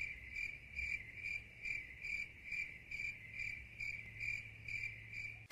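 Cricket chirping sound effect: an even string of short, high chirps, about two and a half a second, which cuts off suddenly near the end.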